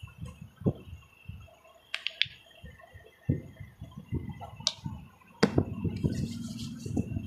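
Handling noises while hands are cleaned: soft irregular bumps and rubbing, with a quick double click about two seconds in and a sharp click about five and a half seconds in, the loudest sound.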